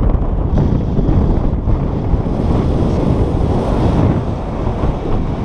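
Wind from a paraglider's flight rushing over the camera microphone: a loud, steady, low rumbling buffet of wind noise.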